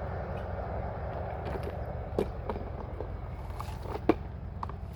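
A steady low mechanical hum with a few short sharp clicks over it, the loudest about four seconds in.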